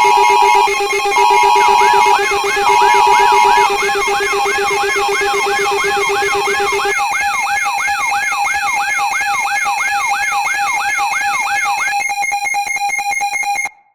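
Synthesized emergency-alert tones. A steady high electronic tone has three long beeps over it in the first few seconds. A fast, repeating sweeping siren tone, about two and a half sweeps a second, then joins in. All of it cuts off abruptly near the end.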